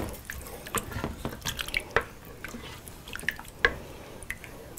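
A spoon stirring thick, chunky tomato-based soup in a stainless steel stockpot: wet squelching with scattered light clicks of the spoon against the pot.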